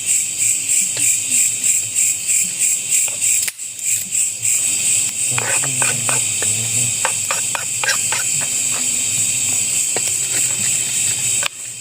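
A loud chorus of night insects, crickets, shrilling in a high pulsing drone at about three pulses a second. Scattered clicks and knocks are heard about halfway through.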